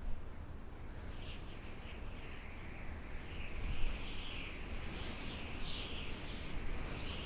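Wind howling in a lull: a thin high whistle that wavers up and down over a low rumble, with a brief swell about four seconds in.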